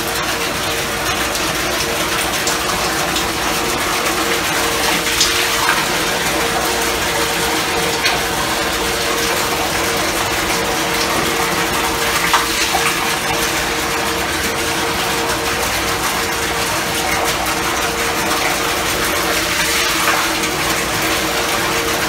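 Steady rushing machinery noise from a microwave grease reactor plant, with a constant mid-pitched hum; a few faint ticks come through now and then.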